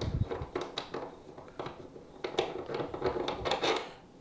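Steel parts of a Forster case trimmer handled and set down on a wooden bench: a low knock at the start, then scattered small metallic clicks and light scrapes.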